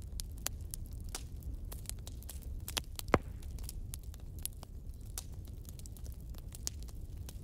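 Irregular sharp crackles and clicks over a steady low rumble, with one louder click about three seconds in.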